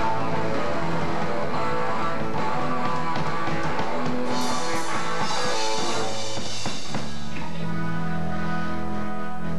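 Rock band playing in rehearsal: electric guitar and a drum kit, with a cymbal wash about halfway through and steady held low notes near the end.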